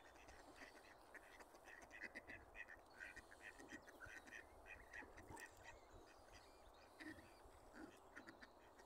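Ducks quacking faintly in a rapid run of short calls, several a second.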